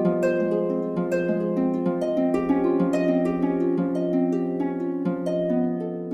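Background music of plucked harp notes, a flowing series of notes over held low tones.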